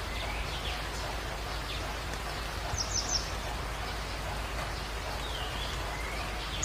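Birds calling over a steady hiss: repeated swooping chirps, and a quick run of high notes about three seconds in.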